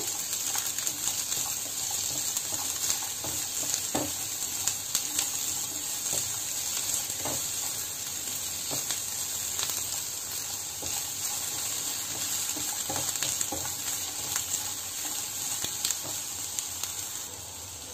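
Chopped onion and green bell pepper sizzling in hot oil in a nonstick pan as they are stirred with a silicone spatula. The steady sizzle carries a few soft clicks of the spatula against the pan.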